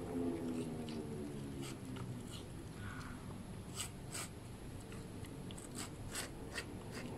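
A small dog eating watermelon from a plastic bowl: scattered wet clicks and smacks of chewing and licking, with several sharper clicks in the second half.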